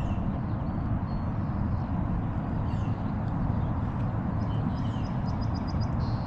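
Steady low outdoor rumble with small birds chirping now and then, including a quick run of about six short chirps near the end.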